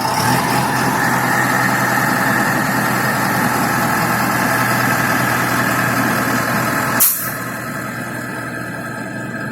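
Engine of a self-loading concrete mixer truck running steadily. About seven seconds in there is a sharp click, and the sound carries on a little quieter and duller.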